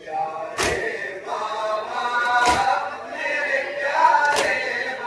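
A group of men chanting a noha, an Urdu mourning lament, in unison. The crowd strikes their chests together (matam) three times, about every two seconds, keeping the beat.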